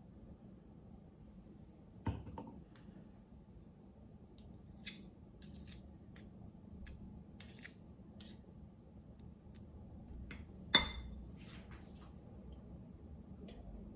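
Small objects being handled on a table: scattered light clicks and taps, a soft knock about two seconds in, and a sharp clink with a short ringing tone near the end.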